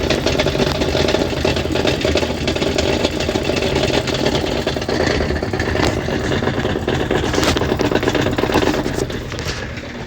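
Whirlpool washing machine running with a loud mechanical noise from down underneath, a dense fast rattle over a steady hum that eases off about nine seconds in. This is the fault noise it was brought in for; it still washes fine.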